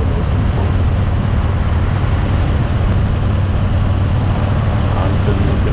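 2018 Harley-Davidson Fat Bob's V-twin engine running steadily under way, with wind noise on the handlebar-mounted microphone.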